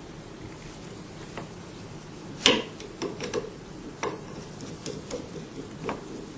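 Small metal clicks and knocks from hand tools and pump parts being handled while the piston cup of an oil-free vacuum pump is taken apart: about eight separate taps over several seconds, the loudest about two and a half seconds in.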